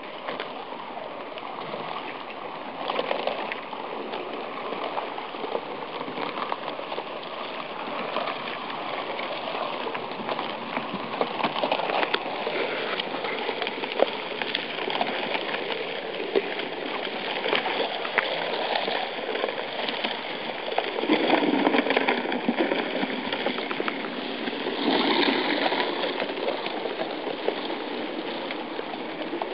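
River ice breaking up and starting to drift: sheets and plates of thin ice crackling and grinding against each other and the bank in a dense, continuous loud crackling. It swells louder about three seconds in, again around twenty-one seconds and around twenty-five seconds.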